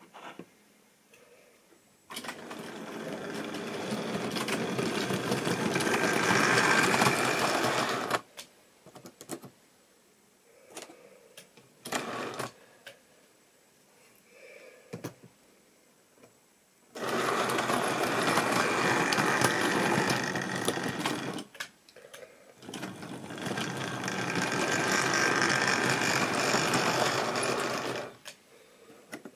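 Model railway locomotive's electric motor whirring as it runs along the track, with the rattle of wheels on the rails, in three runs. The first starts about two seconds in, grows louder and cuts off abruptly; the others run from about halfway through with a short break. Scattered clicks fall in the quieter gaps.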